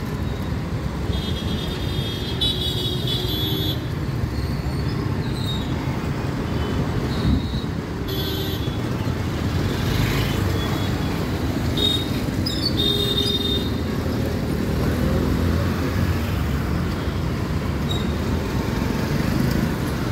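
Busy street traffic of motorcycles, scooters and auto-rickshaws running past, a steady engine and road rumble with several short vehicle horn toots.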